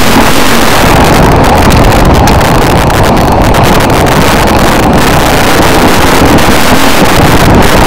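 Off-road vehicle's engine running steadily at speed, buried under loud wind buffeting on the microphone.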